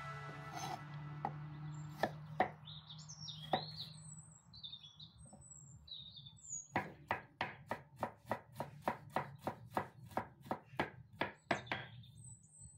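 Chef's knife chopping fresh ginger on a wooden cutting board: a few single knocks, then from about seven seconds in a fast, even run of strikes, about four a second. Birds chirp now and then.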